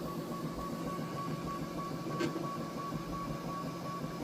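Steady low machine hum with a thin, high steady tone, and a single light click about two seconds in.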